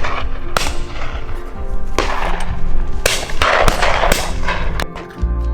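Shotguns firing at flushed pheasants: several sharp shots, about a second apart, from the line of guns. Background music plays under them.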